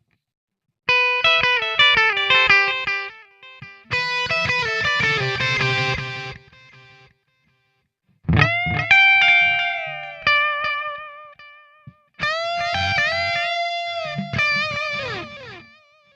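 Electric guitar played through a Boss SD-1 Super Overdrive pedal, giving an overdriven tone. About six seconds of chords and picked notes come first, then a short pause, then single-note lead phrases with string bends and vibrato, the last note sliding down in pitch.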